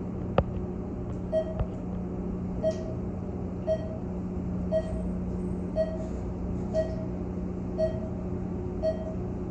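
Elevator car signal beeping about once a second, eight short identical beeps, over a steady low hum inside the moving car. A single click about half a second in.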